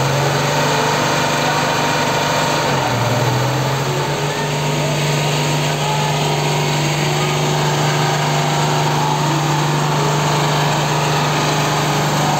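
Vehicle engine running steadily on a muddy hill road during a rope recovery. Its note drops about three seconds in and climbs back about a second later, under a dense hiss.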